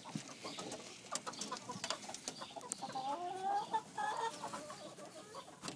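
Chickens clucking, with a run of short clucking calls in the middle. Scattered light knocks and clicks come earlier.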